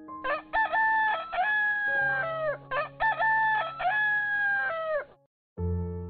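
Rooster crowing twice in quick succession, each crow a run of notes ending in a long falling note, over soft background music.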